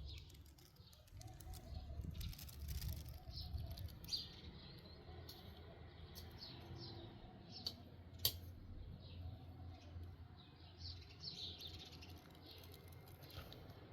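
Small birds chirping repeatedly in short falling notes over a low wind rumble, with two sharp clicks, one about four seconds in and one about eight seconds in.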